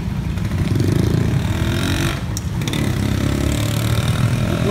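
Street traffic: motorcycles riding past close by over a constant low traffic rumble, their engines rising in pitch as they accelerate, twice.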